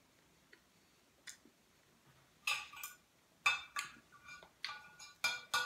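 Metal fork and knife clinking and scraping against a china plate, a quick run of strokes with a short ring to each, starting about halfway through after a few faint clicks.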